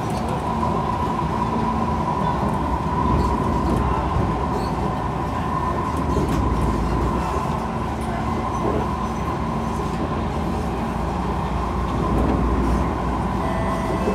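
Kawasaki C151 metro train running along the track: a steady low rumble of the car with a constant high whine over it.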